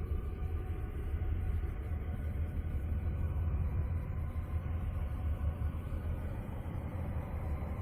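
Steady, deep rumbling drone with a noisy hiss above it, without breaks: a moon's 'sound' of the space-audio kind, spacecraft-recorded waves converted into audible sound.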